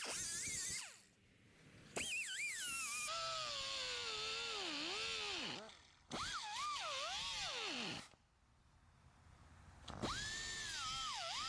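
A high-speed power tool works on the car's sheet-metal body panel in four bursts with short pauses between them. Its whine drops in pitch as it bites and climbs back as it frees up.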